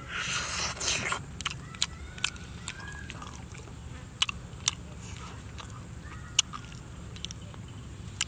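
A man biting into and chewing cooked piglet meat held in his hands: a noisy bite lasting about a second at the start, then scattered sharp crunches and mouth clicks as he chews.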